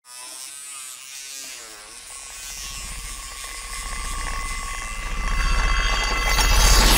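Electric toothbrush buzzing against a glass bottle, its pitch wavering, then a low rapid rattling rumble swells steadily louder over the last few seconds.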